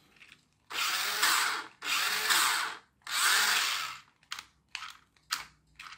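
Toy-grade RC car's small electric drive motor and gearbox, running off a 5-volt USB power bank, spun up in three bursts of about a second each with the wheels off the ground. A few short clicks follow near the end.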